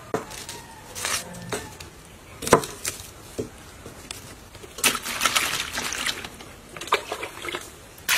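Scattered light knocks and taps of a knife and vegetables handled on a wooden cutting board while young corn cobs are trimmed, with a short stretch of rustling about five seconds in.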